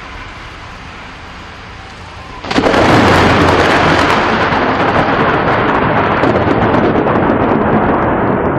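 Thunderstorm: a low hiss, then about two and a half seconds in a sudden loud, steady rush of thunder and rain noise that holds on.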